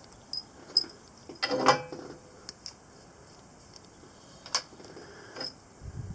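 Small screws and tools being handled while thread locker goes on scope base screws: a few light clicks, a brief rattling clatter about a second and a half in (the loudest sound), and a sharp click a little past the middle.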